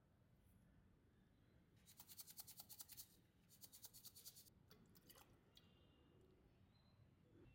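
Faint, rapid ticking and trickling in two runs of about a second each as oil is poured and salt is tipped from a small jar onto chopped onions; otherwise near silence.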